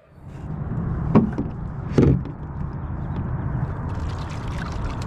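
Sprint canoe under way on flatwater: a steady rush of water and air past the boat, with paddle strokes in the water, the two loudest about one and two seconds in.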